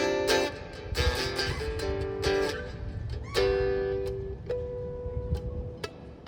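Instrumental music on a plucked string instrument: a few plucked chords, then single notes left ringing and slowly fading.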